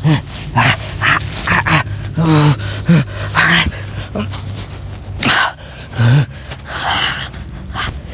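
A man's short, pained groans and whimpering cries, broken up by loud, gasping breaths.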